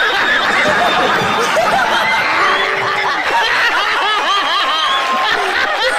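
Laughter sound effect: many voices snickering and laughing at once, densely overlapping in short, high-pitched bursts.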